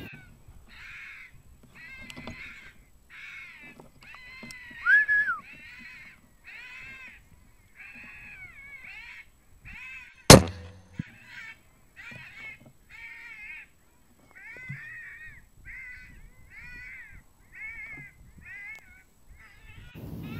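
Electronic FoxPro caller playing a vixen-on-heat call: short, evenly repeated cries, about three every two seconds, with one louder rising-and-falling cry about five seconds in. About ten seconds in, a single loud shot from a moderated Sako 75 rifle in 6PPC cuts through, and the calls carry on after it.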